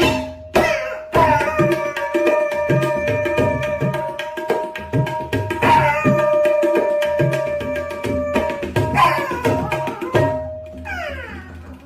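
Music: a quick drum rhythm under long held melodic notes. Near the end the drums stop and a few falling pitched glides are heard.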